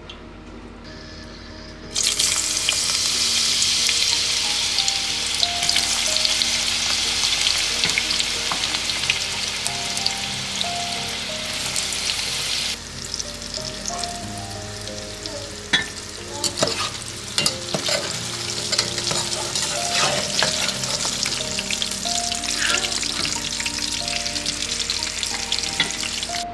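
Cubed eggplant frying in hot oil in a metal pot: a loud sizzle bursts in about two seconds in, as the pieces go into the oil. Later the sizzle is softer, broken by clinks and scrapes of a slotted spoon stirring against the pot.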